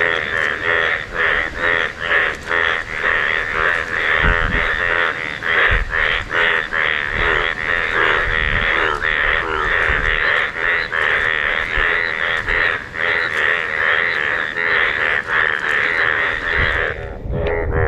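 A person's voice, talking or singing without pause, with a thin, tinny sound that lacks any bass. It cuts off briefly near the end.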